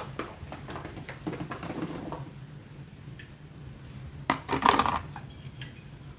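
Kitchenware clinking and clattering while cherry tomatoes go into a skillet and get seasoned: scattered light clicks, then a louder cluster of clatter about four seconds in.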